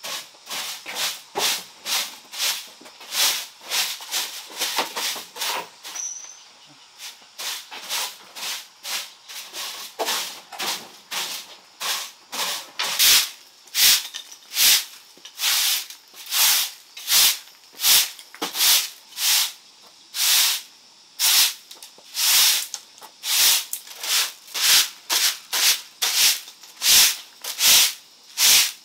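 Repeated rasping strokes, about two a second, each a short burst of hissing noise, growing louder about halfway through.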